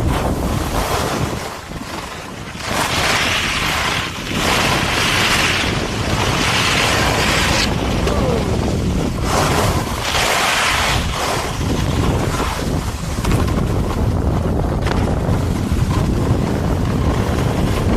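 Wind buffeting the camera microphone while skiing downhill, a steady low rumble. Over it come long hissing swishes of skis sliding on snow, loudest from about three to seven seconds in and again around ten seconds.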